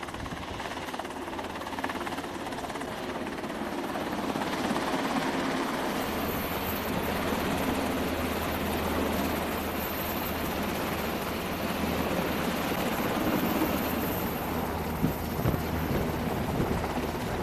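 MH-60 Seahawk helicopter hovering close by: steady rotor and turbine noise that grows louder about five seconds in, then holds.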